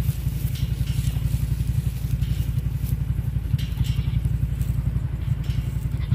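An engine running steadily, heard as a low, rapid, even pulsing, with footsteps crunching on dry straw every half second or so.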